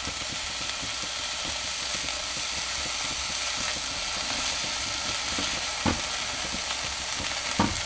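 Vegetables sizzling in butter in a pot while being stirred with a silicone spatula, a steady frying hiss. Two short knocks of the spatula against the pot come near the end.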